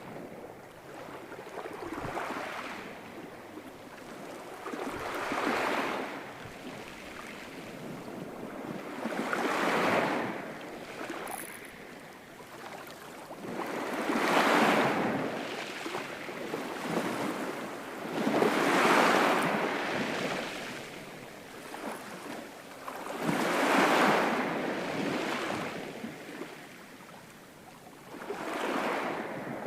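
Ocean waves surging in and fading away again, one swell every four to five seconds.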